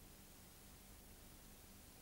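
Near silence: the recording's noise floor, a faint steady hiss with a low hum.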